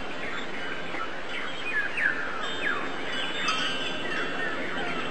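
Several birds chirping: many short, quick downward-sliding chirps, overlapping, over a steady hiss of background noise.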